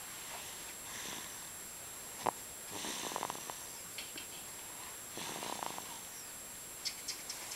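Slow, regular snoring: three rattling snores about two and a half seconds apart, each under a second long, with a couple of sharp little clicks between them.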